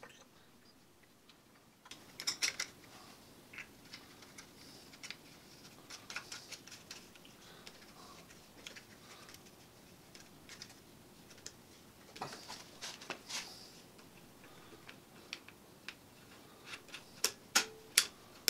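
Scattered small metallic clicks and ticks of hand work on an aluminium-extrusion CNC router frame, a tap wrench and an emergency-stop mounting plate being handled. They come in short clusters starting about two seconds in, with a few sharper clicks near the end.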